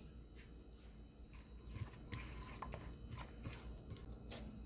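A hand squishing and mixing thick flour-and-chili batter in a stainless steel bowl: faint, irregular wet squelches.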